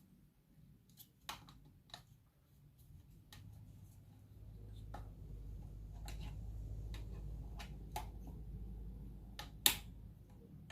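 Scattered clicks and knocks of plastic ring-light and phone-holder parts being handled and fitted together, the sharpest click just before the end, over a low rumble through the middle.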